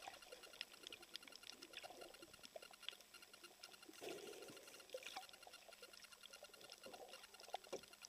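Faint underwater reef ambience: a thin, irregular crackle of tiny clicks, with a soft swell of water noise about halfway through.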